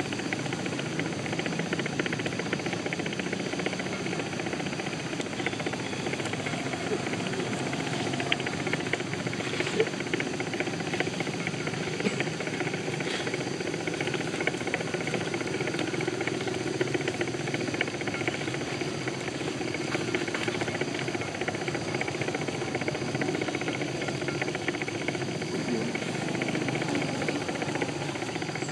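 Steady hissing background noise with a few faint scattered clicks.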